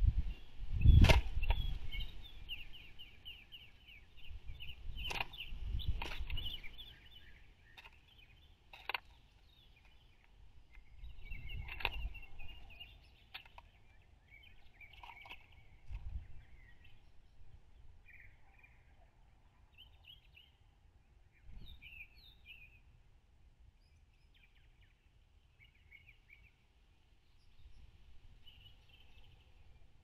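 Sharp knocks and taps on a plastic feeder tray, the loudest about a second in, as a blue jay pecks and handles food in it. Small birds chirp and trill throughout in short calls.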